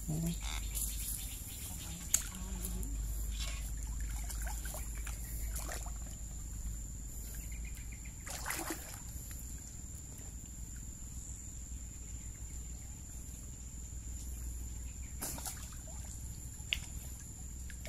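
Soft splashing and trickling of pond water stirred by a person swimming and wading through it, with a couple of brief sharp ticks.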